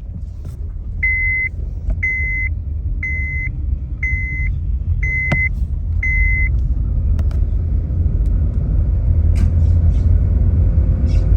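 Low rumble of a 2007 Honda Civic Hybrid under way, growing steadily louder, with six short electronic beeps at about one a second early on and a sharp click partway through them.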